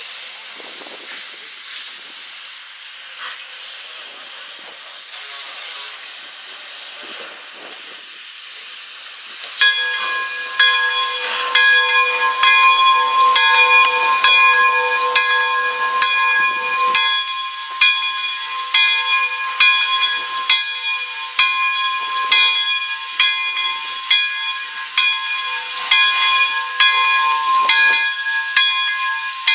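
Steam hissing from the Pere Marquette 1225 steam locomotive, a 2-8-4 Berkshire, then about ten seconds in its bell starts ringing loudly in a steady beat, about three strikes every two seconds, as it runs slowly up to the road crossing.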